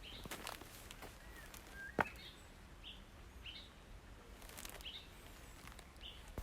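A small bird chirping: short high notes repeated every second or so, with a brief whistled note before two seconds in. Scattered faint taps run underneath, with one sharp click about two seconds in.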